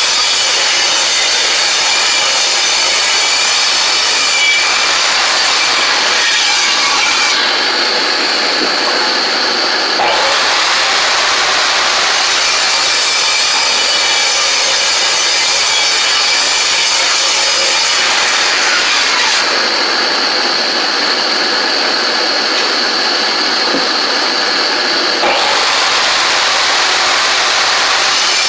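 Power woodworking machine running continuously and cutting wood, with its sound shifting every several seconds as boards are fed through.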